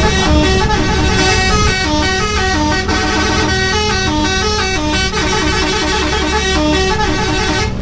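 Bus 'telolet' horn: a set of multi-tone air horns playing a quick tune of stepped notes over the low rumble of the bus engine. The tune cuts off suddenly near the end.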